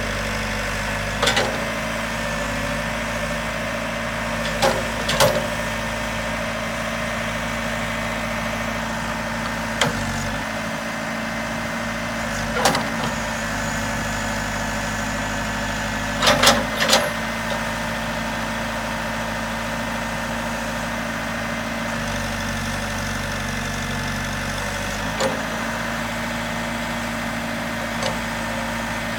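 Case 580 Super M backhoe's diesel engine idling steadily, with a few short sharp knocks or clicks now and then.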